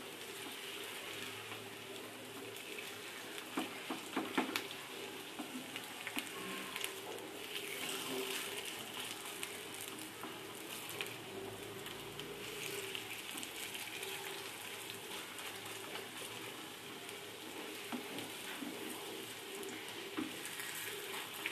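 Poi-leaf (Malabar spinach) fritters sizzling steadily as they shallow-fry in a little oil in a nonstick frying pan. A few sharp clicks come about four seconds in.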